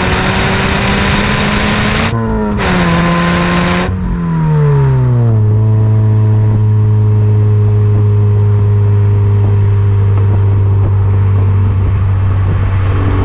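Subaru BRZ's FA20 flat-four through an Ace Laguna 90 catback exhaust, pulling under throttle with a quick upshift about two seconds in. About four seconds in the revs drop, and the engine then holds a steady note at constant speed until the sound cuts off abruptly.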